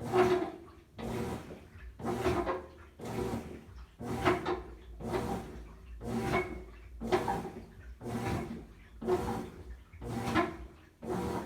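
GE top-load washing machine running with an intermittent noise: a short surge with a faint groaning pitch that repeats about once a second, about a dozen times.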